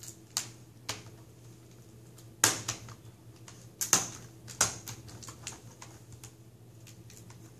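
Plastic screen bezel of an HP ENVY dv6 laptop being pried off by hand, its plastic retaining clips snapping loose in a series of sharp clicks, the loudest about two and a half and four seconds in.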